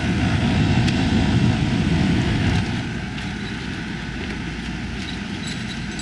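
Steady running noise of self-contained marine air conditioner units, their blowers and compressors running on test. It is somewhat louder for about the first two and a half seconds, then settles to an even level, with a few light clicks.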